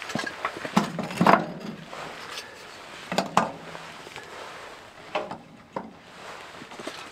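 Split kindling sticks knocking against a log and the metal firebox of a wood stove as they are laid in by hand. There are a few irregular wooden knocks, the loudest about a second in.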